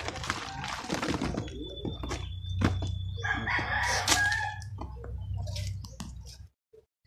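Soil being sifted by hand through a wire-mesh screen into a sack: scraping and rattling of mesh and stick, with two sharp knocks about two and a half and four seconds in. A long drawn-out call sounds in the background and a low steady hum runs under the middle.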